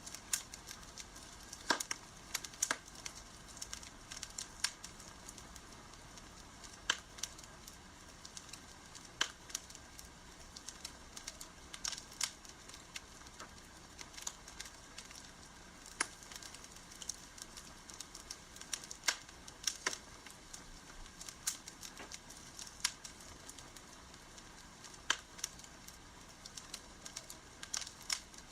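Wood campfire crackling, with irregular sharp pops and snaps over a soft steady hiss of burning.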